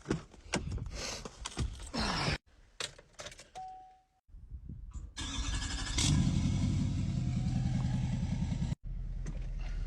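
Knocks and clicks of getting into a truck, then a short chime, then the truck's engine starting about five to six seconds in and running steadily.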